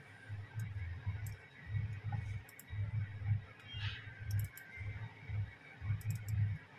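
A few sharp computer mouse clicks, some in quick runs of two or three, over a low, uneven rumble.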